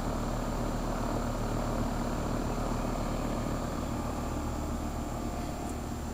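Carrier central air-conditioner condensing unit running steadily under a high heat load: a low compressor hum under the whooshing of the condenser fan.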